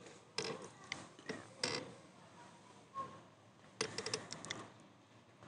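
Scattered light metallic clicks and rattles, with a quick run of clicks a little under four seconds in: steel ceiling hanger rods and their spring clips being adjusted by hand to level the ceiling channel.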